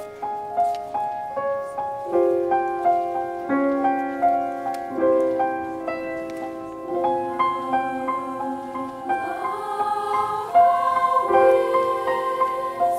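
Piano playing a gentle accompaniment, with a youth choir's voices coming in about nine seconds in.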